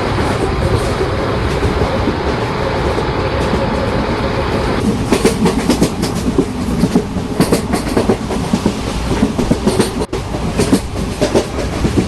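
Train running past with a steady rumble, then about five seconds in its wheels start clattering sharply and irregularly over the rail joints.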